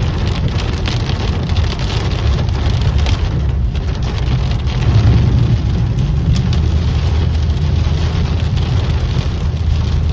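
Heavy rain pouring down in a thunderstorm, with a steady deep rumble underneath that swells about five seconds in.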